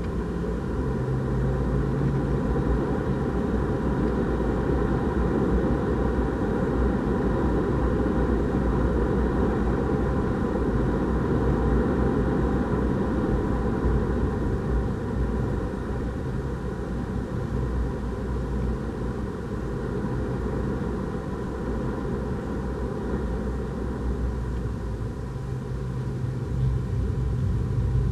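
A Renault Clio RS 200's turbocharged 1.6-litre four-cylinder heard from inside the cabin at speed on track, with a steady rumble of road and tyre noise and no distinct breaks.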